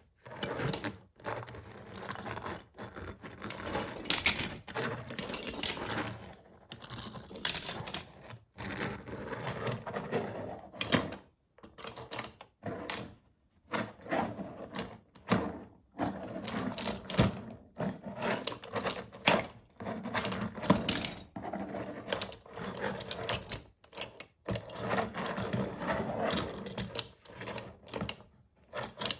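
Diecast toy cars rolling and clattering: rapid runs of small metal-and-plastic clicks and knocks in bursts, with brief pauses between them.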